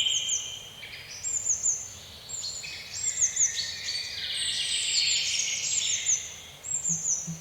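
Several birds chirping and singing at once, a dense chorus of overlapping calls that includes quick, repeated high falling notes.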